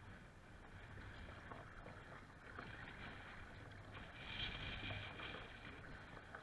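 Choppy lake water slapping and splashing against a paddled kayak, heard close from deck level, with wind rumbling on the microphone. A wave surges over the bow about four seconds in, the loudest moment.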